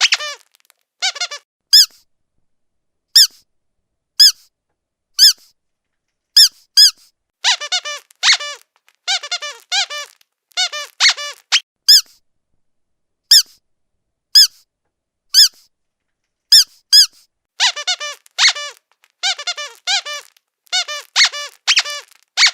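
Squeaky dog toy squeezed over and over. Some squeaks come singly about once a second, others in quick bunches of several, each short and bending in pitch.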